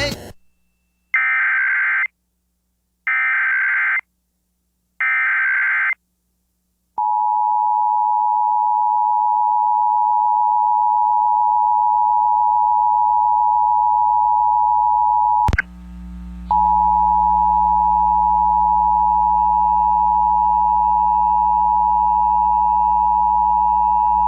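Emergency Alert System SAME header: three short, harsh digital data bursts about a second apart. These are followed by the EAS two-tone attention signal, a steady, piercing tone. About two-thirds of the way through the tone clicks and drops out for about a second, then resumes with a low hum underneath.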